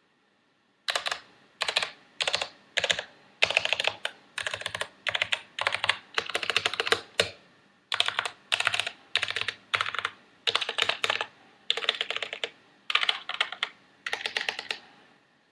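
Typing on a mechanical keyboard fitted with YMDK dye-sublimated PBT keycaps in Cherry profile. The keystrokes come in quick runs of about half a second to a second, with short pauses between them. The typing starts about a second in and stops near the end.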